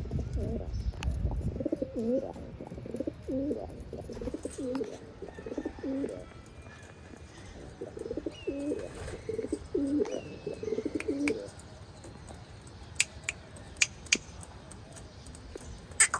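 Racing pigeons cooing: repeated low coos in two runs with a short pause between them, followed by a few sharp clicks near the end.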